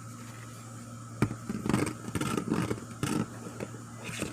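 A sharp click, then a couple of seconds of scuffling, scraping and knocking over a steady low hum.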